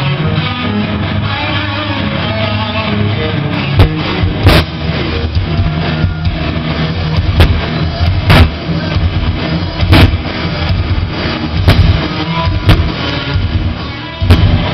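Live rock band playing loud: electric guitars over a drum kit, with sharp drum hits standing out every second or two.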